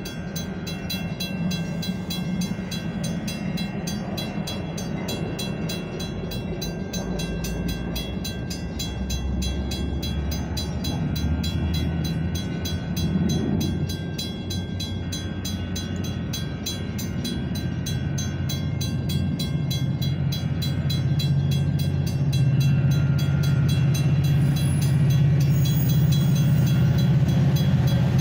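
Metra bilevel commuter coaches run steadily past at a grade crossing while the crossing bell rings in quick regular strokes. A diesel locomotive's low hum swells louder over the last few seconds as it draws near.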